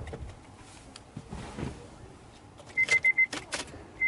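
Someone settling into a car's driver's seat, with soft knocks and rustling, then the car's warning chime beeping quickly four times about three seconds in, among sharp clicks as the key goes to the ignition.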